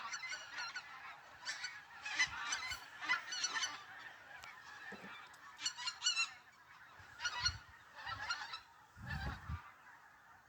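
A flock of geese flying over, honking faintly in scattered clusters of overlapping calls.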